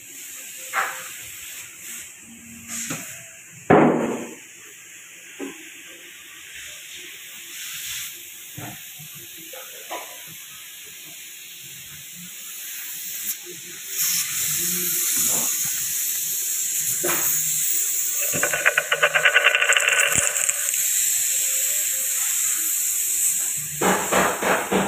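Compressed-air spray gun hissing as black paint is sprayed onto a car's chassis. The hiss starts about halfway through, after scattered knocks and clicks, and a fast rattle joins it for about two seconds. Music with a beat comes in near the end.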